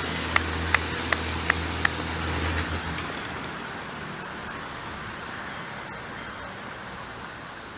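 An engine running with a steady low hum that cuts off about three seconds in, over a steady hiss of outdoor background noise. A quick, even run of six sharp ringing clicks comes in the first two seconds.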